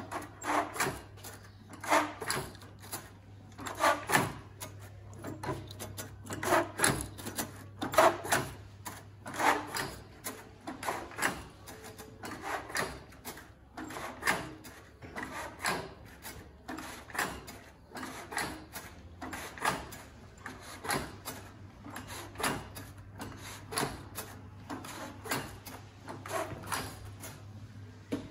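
Growcoon hand dispenser being worked: a run of sharp metal clacks and sliding rubs, roughly one a second, over a steady low hum.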